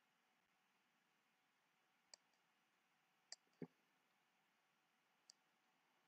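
Near silence with a few faint, sharp computer mouse clicks.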